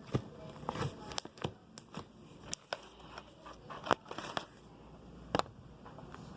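Homemade slime being squished and worked by hand, giving irregular small clicks and crackly pops, with a couple of louder pops about four and five and a half seconds in.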